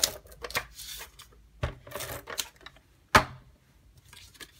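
ATG adhesive tape gun run along paper envelope flaps, giving irregular clicks and short rasping strokes, with paper handling and a sharp knock about three seconds in.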